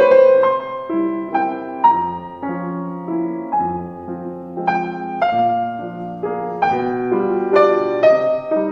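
Background music: soft, slow piano, notes struck one after another every half second or so and left to ring.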